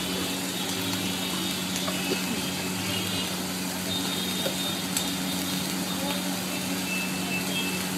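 Rice and butter frying on a large flat steel griddle: a steady sizzle over a constant low hum, with a few light clicks of utensils.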